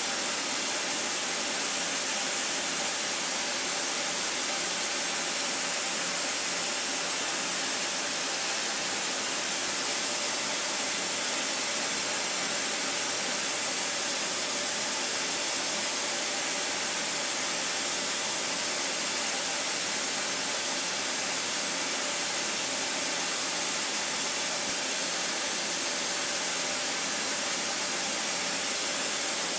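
CNC milling of a tough-pitch copper electrode with a two-flute DLC-coated carbide ball end mill (OSG AE-LNBD-N R1) spinning at 16,800 rpm, semi-finishing by contouring. The sound is an even, high hiss with faint steady tones beneath it.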